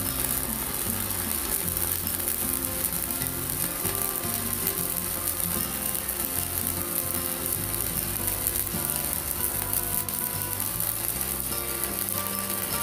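Arc of a stick (MMA) welder crackling and sizzling steadily as a 4.0 mm electrode burns, under background music.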